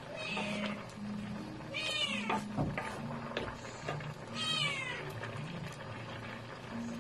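A cat meowing twice, a short high call about two seconds in and another about four and a half seconds in, with light clicks of a wooden spatula stirring in a pan.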